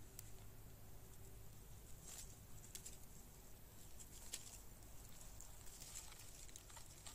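Near silence: faint scattered light ticks and crackles, with a low hum that stops about a second and a half in.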